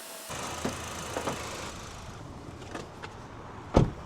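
2012 Honda Civic LX's four-cylinder engine idling with the air conditioning on max during a low-side refrigerant recharge. There are a few light knocks, and one loud thump near the end.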